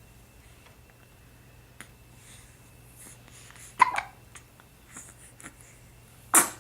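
A four-week-old baby hiccuping: two short, sharp hiccups about two and a half seconds apart, the second, near the end, the louder.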